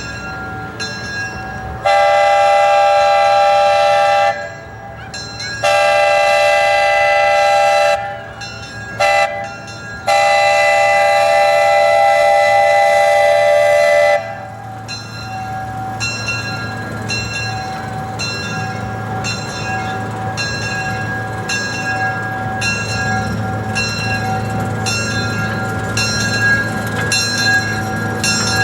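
Locomotive #19's chime whistle sounds several notes at once in four blasts: long, long, short, long, the grade-crossing signal. The train then runs on with a steady, even beat of about one stroke a second.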